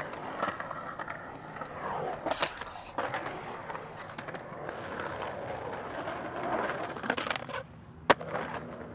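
Skateboard wheels rolling and carving on smooth concrete, a steady rolling rumble, broken by several sharp clacks of the board. The loudest clack comes about eight seconds in.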